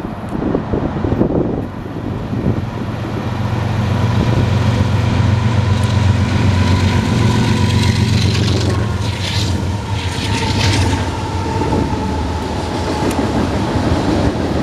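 Union Pacific mixed freight train passing. A heavy diesel drone rises from a few seconds in and fades after about ten seconds, with rolling wheels clacking over the rails. Two short high-pitched squeals come about two thirds of the way through.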